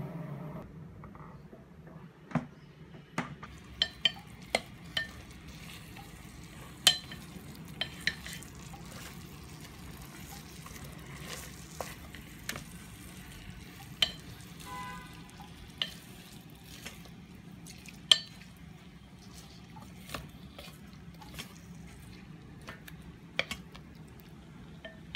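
Wooden chopsticks knocking and scraping against a rice cooker's inner pot as pieces of char siu pork are turned, in irregular sharp clicks. Under them is a faint sizzle of the marinade cooking down over high heat.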